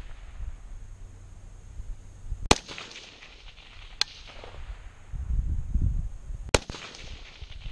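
Three shots from a 6.5 Grendel AR-15 rifle with a tanker muzzle brake, fired semi-automatically at an uneven pace: the second shot comes about a second and a half after the first, and the third about two and a half seconds after that.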